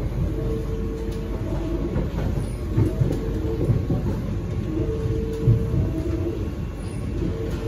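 Kawasaki–CRRC Sifang C151B metro train running between stations, heard inside the passenger car. A steady low rumble of wheels on rail, with scattered clicks and knocks and a faint hum that comes and goes twice.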